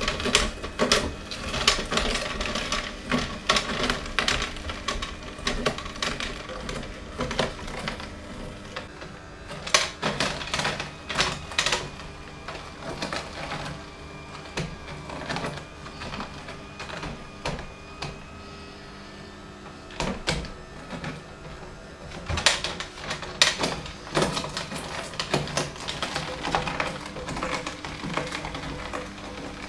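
Philips masticating juicer running, its slow screw auger crushing carrots with irregular cracking and crunching over the faint steady hum of its quiet motor. The crunching thins out for several seconds midway, then picks up again.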